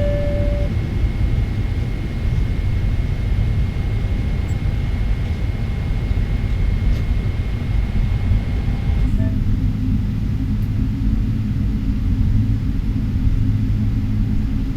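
Steady low rumble of a Boeing 777-300ER's cabin as the airliner taxis, with a short beep at the start and a faint steady high tone. About nine seconds in, the high tone and hiss drop away and a lower hum comes in.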